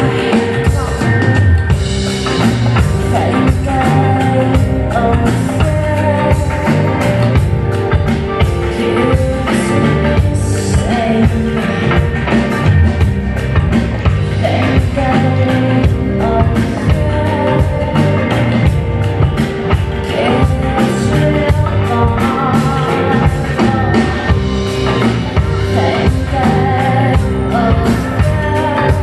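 Live band music: a woman singing lead vocals over a drum kit and other instruments.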